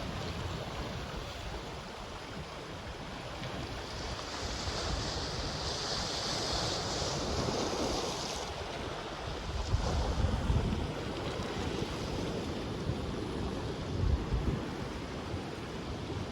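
Ocean surf breaking and washing over a black sand beach, with a hiss that swells for a few seconds near the middle. Sea wind buffets the microphone in low gusts in the second half.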